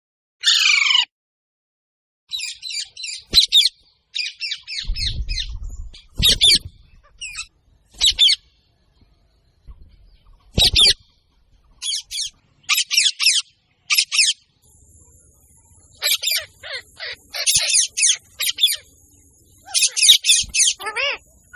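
Parrot calling: a loud falling squawk near the start, then many short, harsh squawks in quick runs with short pauses between them.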